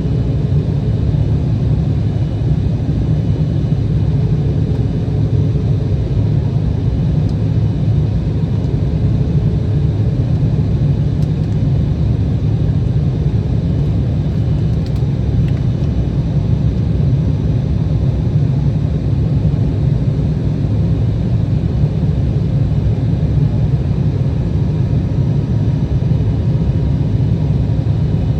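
Cabin noise inside an Embraer E175 jet airliner: a loud, steady low rumble of its turbofan engines and airflow, with no change in pitch.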